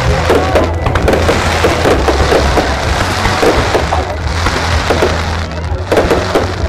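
Aerial fireworks bursting overhead, a dense rapid crackle of many small pops over a steady deep rumble.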